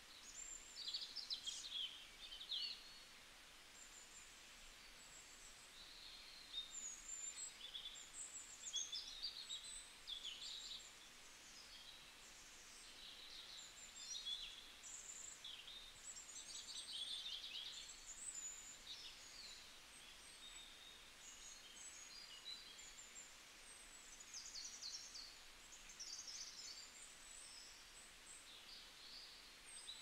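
Small birds chirping and twittering faintly, short high calls and quick trills coming every second or two, over a faint steady hiss of outdoor air.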